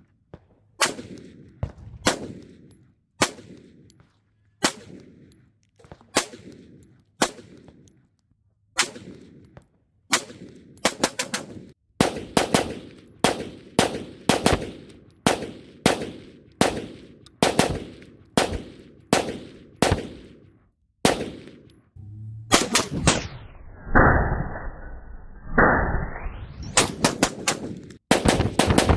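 Sig MCX Spear LT 5.56 rifle firing. At first the shots come singly about a second apart, each with an echoing tail; from about a third of the way in they come in quicker strings of several shots. Some seconds past the middle, the shots sound muffled for a few seconds, their treble cut away as if filtered.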